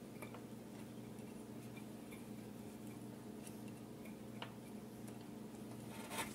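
Faint, scattered small clicks of wire spade connectors being handled on an electric stove's surface burner control switch, over a steady low hum.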